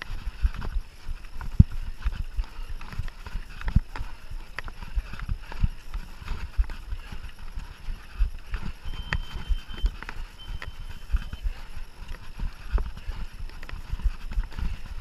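Mountain bike ridden fast over a rough cross-country trail: constant irregular knocking and rattling, several jolts a second, over a low rumble. A thin high squeal sounds twice, briefly, a little past the middle.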